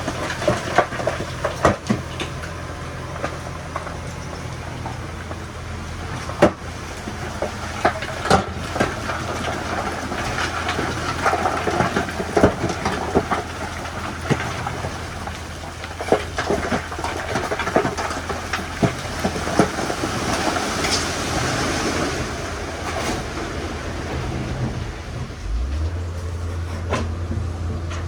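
Heavy diesel earthmoving machinery, most likely a crawler bulldozer, running steadily with a metallic clanking from its steel tracks and irregular knocks. The engine note deepens and gets louder near the end.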